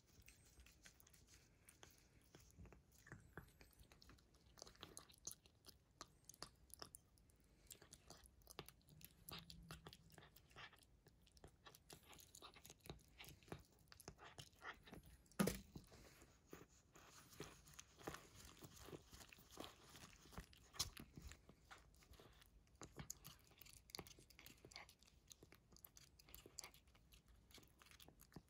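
A cat chewing and licking raw horse meat from a paper cup: a run of faint small clicks and smacks, with one sharper click about halfway through.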